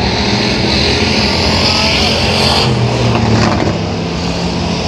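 Engines of factory stock dirt-track race cars running hard as the field laps the oval. A deeper engine note swells about three seconds in as a car comes by closer.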